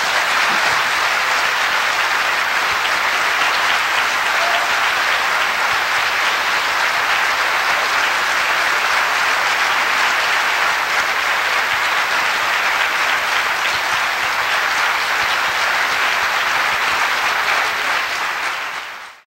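Audience applauding, a dense, steady clapping that cuts off abruptly near the end.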